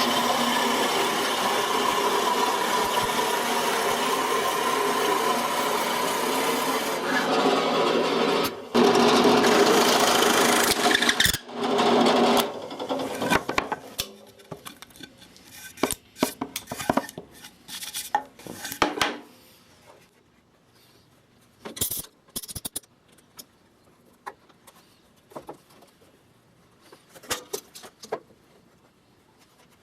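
Electric drill running as it bores into wood, with a short stop about eight seconds in, then stopping about twelve seconds in; after that scattered knocks and clicks of wood and tools being handled.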